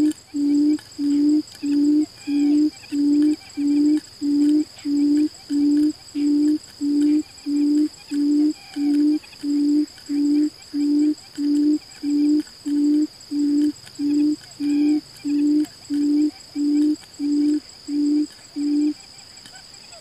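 Barred buttonquail's booming call: a long series of low, even hoots, about three every two seconds, stopping about a second before the end. A steady high drone of insects runs underneath.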